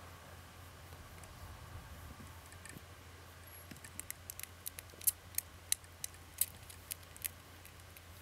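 Newborn Bengal kittens nursing at their mother, with an irregular run of small sharp clicks starting about halfway through over a faint low hum.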